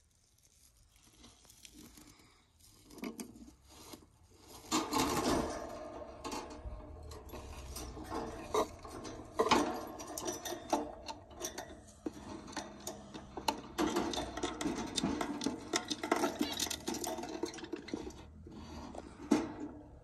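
Handling noise at a wooden budgie nest box and coconut-fibre nest: irregular rustling, scraping and sharp clicks, faint at first and busy from about five seconds in.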